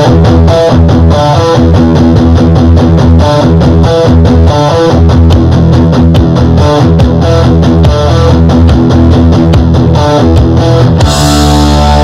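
Rock track with distorted electric guitar over a strong bass and a steady beat, played through a soundcore Boom 2 Bluetooth speaker. Near the end the arrangement changes and grows brighter.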